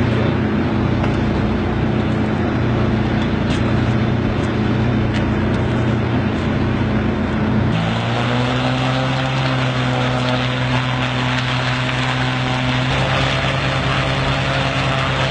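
Small reconnaissance drone's piston engine running steadily on its catapult launcher before launch, a constant droning hum. The note shifts to a slightly different steady pitch about halfway through.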